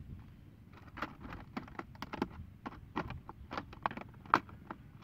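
Thin plastic bottles being handled: irregular sharp clicks and crackles of the plastic, with one louder click a little after four seconds in.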